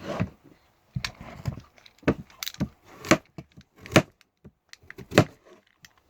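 Fidget cube being clicked and fiddled with in the hand: a string of sharp clicks at uneven intervals, with handling rustle between them.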